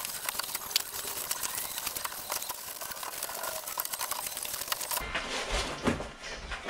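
Rapid crackling and scraping of foam flotation blocks being cut and torn out of a small boat's hull. About five seconds in it gives way to duller knocks as a block is lifted out.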